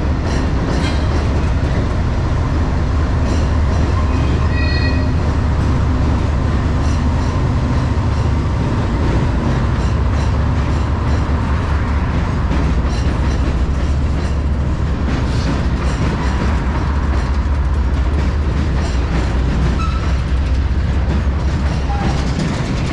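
Freight train of tank cars rolling across an elevated steel trestle: a steady, loud low rumble with scattered clicks from the wheels. A brief high squeal comes about five seconds in.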